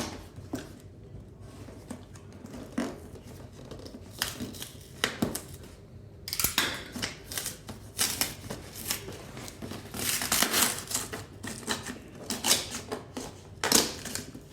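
Utility knife cutting open a cardboard box, with scraping, rustling and knocking of the cardboard and packaging in irregular bursts, busier in the second half.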